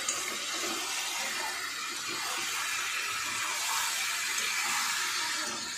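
Chicken pieces and onions frying in oil in an open kadai, a steady hiss of sizzling.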